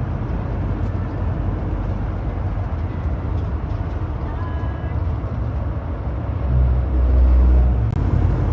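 Road and engine rumble heard inside the cab of a large RV on the move, swelling louder about two-thirds of the way through.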